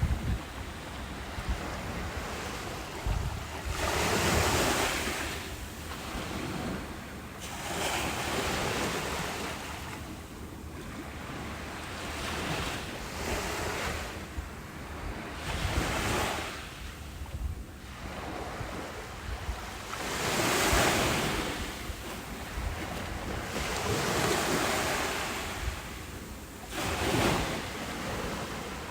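Ocean waves breaking and washing up a beach, a fresh surge of surf every three to four seconds, with wind buffeting the microphone.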